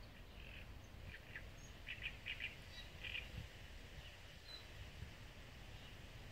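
Small birds chirping in short quick clusters of high notes during the first half, with a few fainter calls later, over a steady low background rumble.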